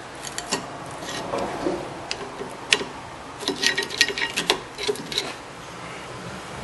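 Rusted rear brake caliper on a 2006 Ford Escape being slid back and forth by hand on its slide pins: a run of metallic clicks, knocks and scrapes, with one sharp click near the middle and a quick cluster of clicks soon after. The caliper moves on its slide pins despite heavy rust.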